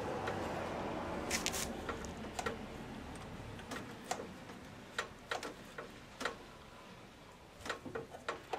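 Irregular light metallic clicks and knocks from the throttle and shift linkage of an outboard powerhead being worked by hand. The linkage is binding, which the mechanic puts down to corrosion.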